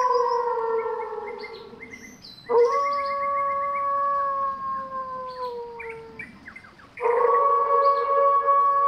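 Grey wolf howling: long, steady howls that slowly sink in pitch. One howl fades out in the first two seconds, a new one starts about two and a half seconds in and trails off near six seconds, and another begins about seven seconds in.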